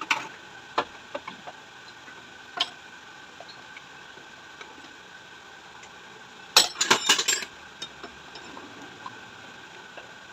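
Metal clinking and knocking as tools and shock-absorber parts are handled: a few scattered clinks, then a quick burst of louder clinks about six and a half seconds in.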